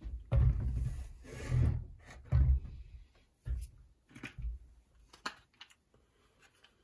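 Handling noise from a Shindaiwa trimmer's plastic-housed engine being turned and shifted on a wooden workbench: low bumps and rubbing for the first few seconds, then several light, sharp plastic clicks and taps as the air-filter cover comes off and is handled.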